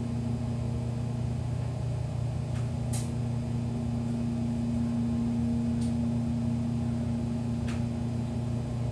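1980s General Oiltronic in-ground hydraulic elevator travelling upward, heard from inside the cab: a steady hum of the pump motor driving the car, with a few faint short clicks.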